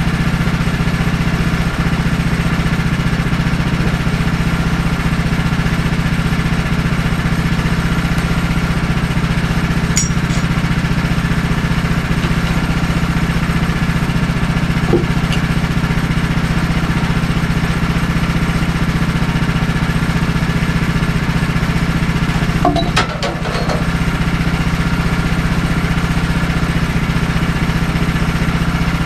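Woodland Mills portable bandsaw mill's gas engine running steadily at idle, not cutting. A few light knocks come from work on the log, and the engine note dips briefly near the end.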